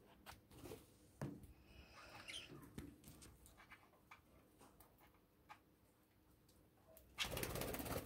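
Budgerigar cracking and husking seed from a metal bowl, faint small clicks with a few soft chirps a couple of seconds in. Near the end comes a brief, louder flutter of budgie wings lasting under a second.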